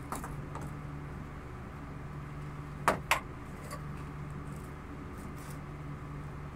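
Two sharp clacks about a quarter second apart, roughly three seconds in, from a plumber handling green PPR water pipe and a plastic pipe cutter, with a few fainter clicks near the start. A steady low hum runs underneath.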